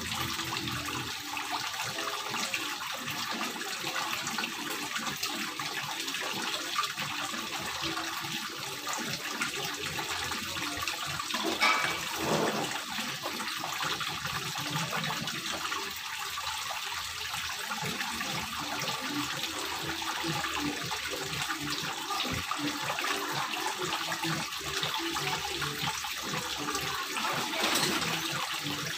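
Water from a grooved stone water-wall fountain pouring from small spouts into the pond below: a steady splashing, briefly louder about twelve seconds in and again near the end.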